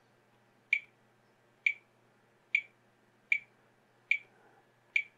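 Fluke 11 multimeter's SELECT button pressed over and over: six short, sharp clicks a little under a second apart. The switch is responding again now that its worn elastomer connector has been replaced.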